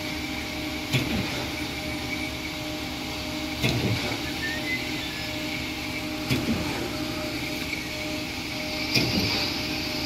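Diesel engine of a truck-mounted concrete pump running steadily, with a heavy clunk about every two and a half seconds, four in all, as the pump's pistons change stroke.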